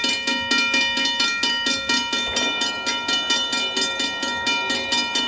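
Railroad grade-crossing bell ringing steadily, about four strikes a second, each strike leaving a lingering metallic ring.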